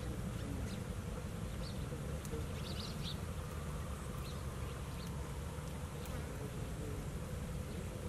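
A steady low buzz throughout, with a few faint, short high chirps, clustered about two to three seconds in, that fit hungry nestling birds calling for food.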